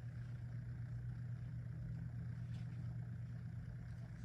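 A steady low hum, even and unchanging, with no other sound standing out.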